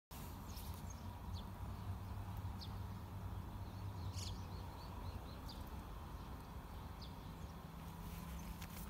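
Quiet outdoor ambience: small birds chirping in short, scattered calls, with a quick run of chirps midway, over a steady low hum.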